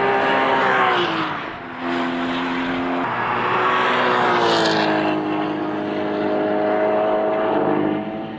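Porsche Cayman GT4's naturally aspirated flat-six running at high revs as the car passes at speed on a race track. Its engine note drops in pitch as it goes by, with the loudest, closest pass about four and a half seconds in.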